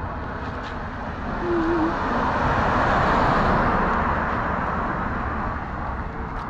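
A car passing on the street, its noise swelling to a peak about three seconds in and then fading away.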